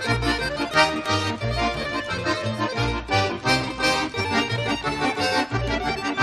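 Upbeat accordion-led background music with a steady bouncing bass beat.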